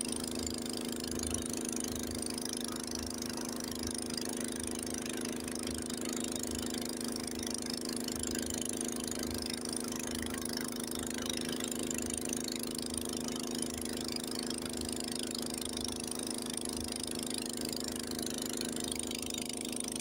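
Honda HS80 snowblower's engine running steadily while the machine clears snow, its auger and impeller throwing a plume of snow. The engine note stays even throughout.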